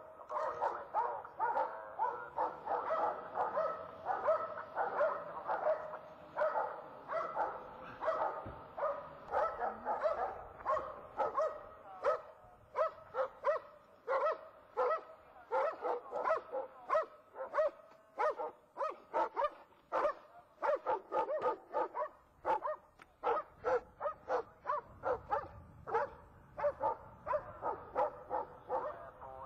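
A dog barking over and over, about three barks a second, without a break.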